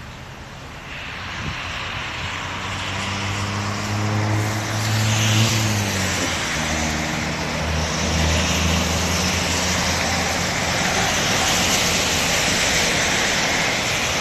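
Motor vehicle engine and road noise building up about a second in, with a low engine hum whose pitch drops about halfway through while the road noise carries on.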